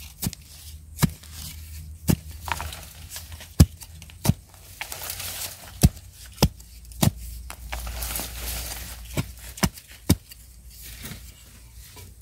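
A hand digging tool chopping into soil to unearth wild yam tubers: about a dozen sharp strikes at uneven intervals, with the scrape of loosened earth between them.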